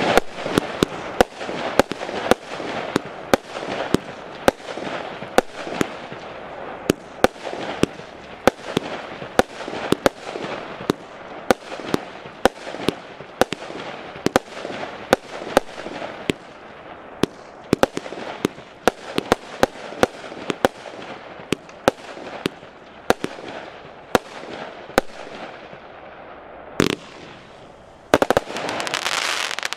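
Piromax PXC215 'Motion', a 100-shot 20 mm firework battery, firing: a fast, uneven string of sharp shots, about two a second, over continuous noise from the shells bursting overhead. Near the end a louder stretch of steady noise rises between the shots.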